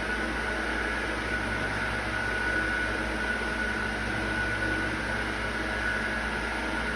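Steady machine hum with a constant high-pitched whine, unchanging throughout.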